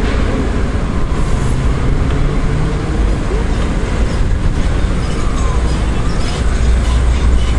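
Strong wind buffeting the microphone: a steady, loud low rushing noise with no distinct breaks.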